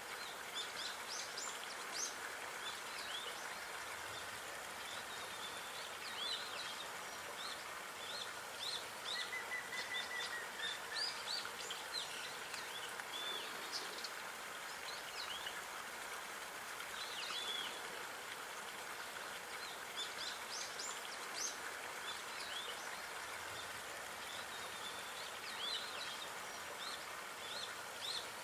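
Many small birds chirping and singing, with short calls scattered throughout and one longer whistled note about ten seconds in, over a steady hiss of running water.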